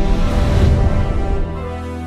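Intro music with held chords, swelling in the first second, then dropping to a quieter sustained sound about one and a half seconds in.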